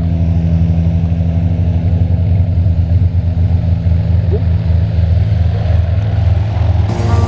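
Piston engine and propeller of a small single-engine high-wing plane running on the ground, a loud, steady low drone. Music comes in near the end.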